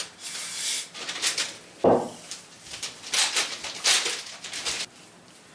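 A run of short scraping strokes, about one or two a second, with a sharper clunk about two seconds in, as materials are handled and worked by hand.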